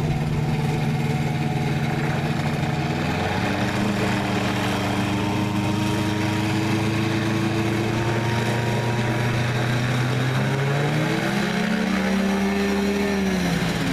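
CGS Hawk ultralight's engine and pusher propeller running as the plane taxis. The engine note steps up in pitch about three seconds in, climbs again near the end, then drops back.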